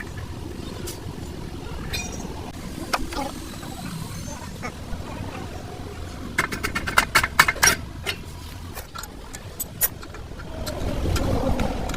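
Sharp metallic clinks and taps, with a quick cluster of loud strikes about halfway through, over a steady low engine rumble that swells near the end.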